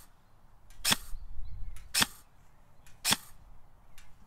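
KWA KM4 airsoft electric rifle firing single shots: three sharp cracks about a second apart.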